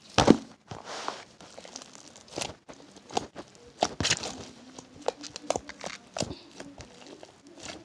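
Homemade slime being kneaded and pressed by hand, giving irregular clicks and pops.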